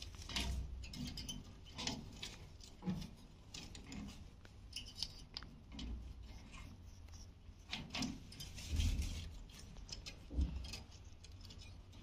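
Alexandrine parakeet biting and chewing green capsicum on a wire cage floor: irregular crunches and clicks from its beak, with a few dull thumps, the loudest about nine and ten seconds in.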